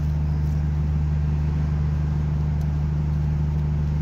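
A steady low mechanical hum, like a motor or machine running, unchanged in pitch and level, with a few faint metal clicks as the brake caliper is handled.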